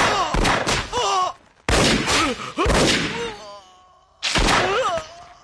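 Pistol gunfire from a film soundtrack: several loud shots in three clusters, each with an echoing tail. Men cry out and groan in pain between the shots as they are hit.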